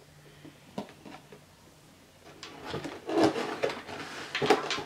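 Cardboard toy packaging being handled and pulled open: a few light taps at first, then dense rustling, scraping and knocking that grows louder from about halfway through.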